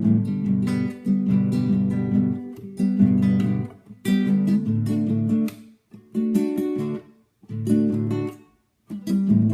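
Acoustic guitar strummed in a mariachi style, chord after chord, breaking off into short pauses several times in the second half.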